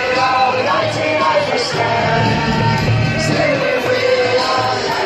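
Rock music with a singing voice, a steady full-band song.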